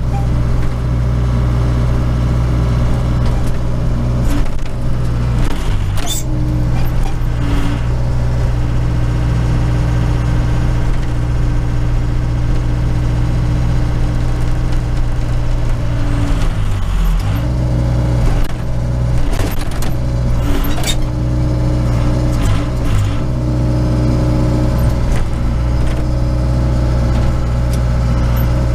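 Case 580 Super K backhoe's four-cylinder diesel engine running steadily as the hoe works, heard from inside the cab, its note dipping briefly a few times under hydraulic load. A handful of sharp knocks and clanks from the bucket scraping ice and slush.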